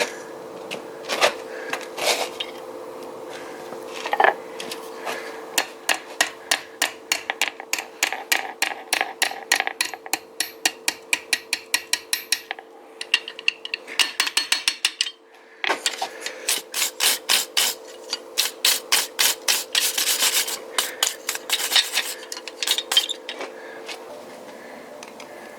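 Blacksmith's hammer striking steel on an anvil in a fast, even rhythm of about three blows a second, in two long runs with a short break about halfway through. A steady hum runs underneath.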